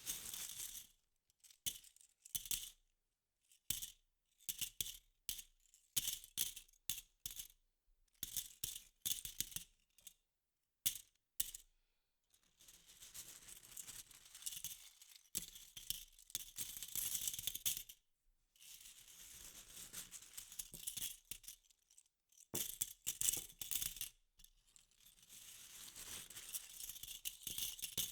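Plastic toy coins clattering against each other. First comes a string of short clinking, jingling bursts with silent gaps between them, then from about halfway on come longer stretches of continuous rattling.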